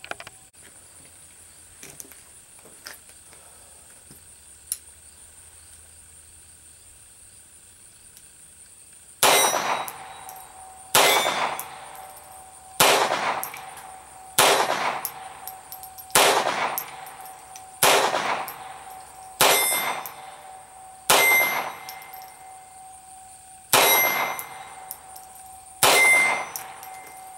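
Sig Sauer 1911-22 .22 LR semi-auto pistol fired ten times in slow succession, starting about nine seconds in, roughly one shot every two seconds. Each shot is a sharp crack with a short ringing tail.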